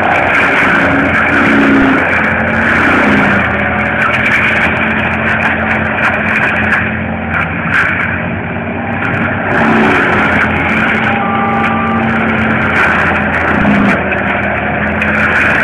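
Cat 287 skid steer's diesel engine running hard with its hydraulic mulching head, a steady loud drone with a hissing, grinding band above it. The engine note dips and recovers briefly a couple of times.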